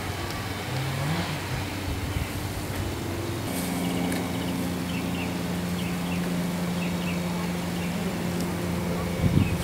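A motor engine running steadily, its pitch rising briefly about a second in and holding level through the middle.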